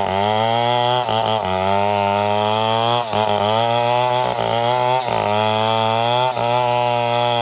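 Two-stroke chainsaw running at full throttle while cutting wood, its engine pitch dragging down and recovering about four times as the chain bites into the cut.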